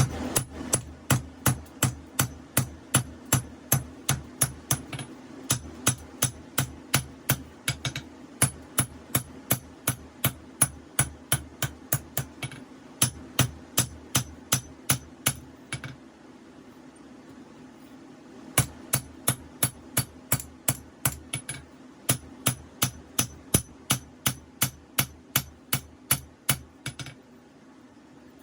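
Hammer blows on hot 5160 steel over an anvil as a knife blade is drawn out, about three ringing strikes a second in runs, with a pause of a couple of seconds past the middle. A steady low hum runs underneath.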